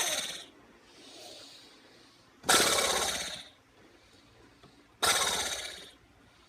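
A person making a harsh rasping noise with the mouth and throat, three times about two and a half seconds apart, each burst lasting about a second and fading out.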